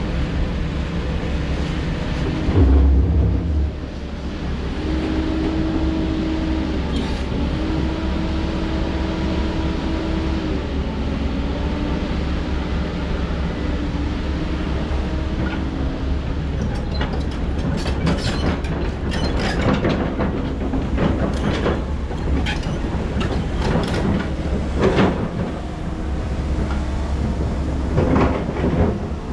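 Heavy diesel excavator running under load, its hydraulic whine stepping up and down in pitch over a steady engine drone, with a heavy thump about three seconds in. From about halfway on, repeated knocks and clatter of rock being dug and moved.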